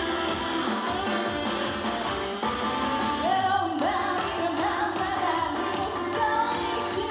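Live band playing a trot song, with a singing voice coming in about three seconds in.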